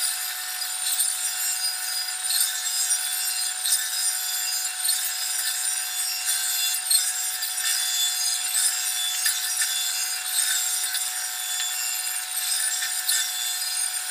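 Meat band saw running with a steady whine, its blade rasping through kingfish (tanigue) as pieces are fed into it, the cutting sound rising again every second or so.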